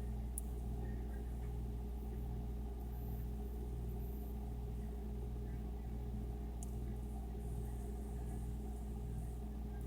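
Refrigerator running with a steady low hum, with two faint clicks, one just after the start and one about two-thirds of the way through.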